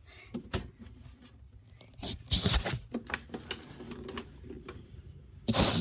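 Phone handling noise: scattered light taps and knocks as the phone is moved around, with a loud rustle near the end as something rubs over the microphone.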